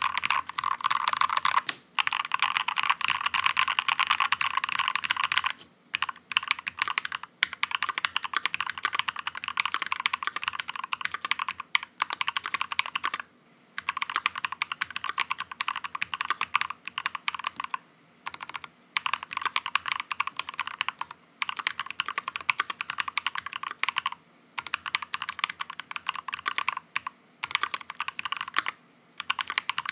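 Mechanical keyboard with lubed Faker Holy Panda tactile, non-clicky switches typed on rapidly: a dense, continuous run of keystroke clacks, broken by short pauses every few seconds.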